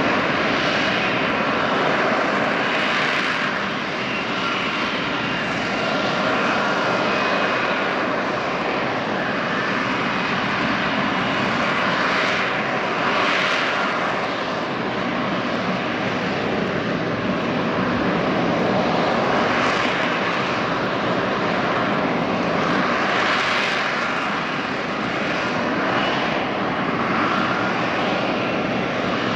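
F-35B fighter jet's engine running steadily at high power: a dense rushing noise with faint high whining tones, swelling and easing a little every few seconds.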